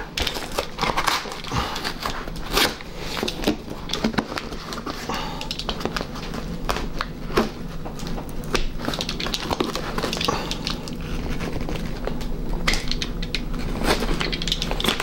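Cardboard shipping box and packing tape being cut and torn open with a small knife: irregular crackling, scraping and tearing of cardboard, over a faint steady low hum.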